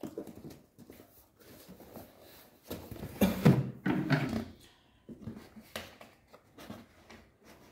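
Product packaging being handled and opened: scattered rustles and clicks, with two louder, briefly pitched sounds about three and four seconds in.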